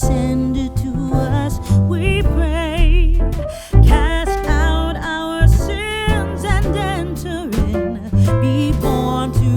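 Background music: a song with a singing voice over guitar and a steady bass beat.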